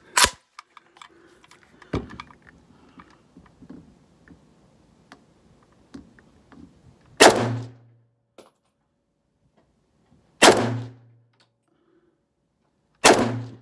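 A Mak 90 AK-pattern rifle in 7.62×39 mm fires three single shots about three seconds apart, each a sharp bang with a short echoing tail. Just before them come a couple of sharp metal clacks as a small magazine is seated. The rifle is being test-fired to see whether it cycles reliably after feeding problems.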